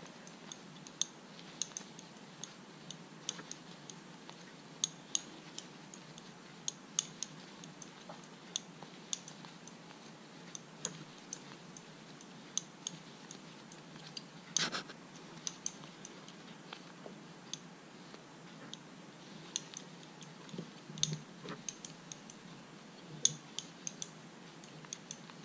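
Small irregular clicks and ticks of a crochet hook knocking against long fingernails and yarn as double crochet stitches are worked, a few each second, with a louder click about halfway through and another near the end.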